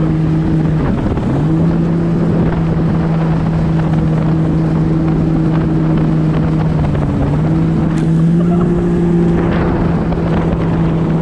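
Yamaha WaveRunner jet ski engine running steadily under way. Its note dips briefly about a second in and again around seven seconds as the throttle is eased and reopened, over wind buffeting the microphone and rushing water.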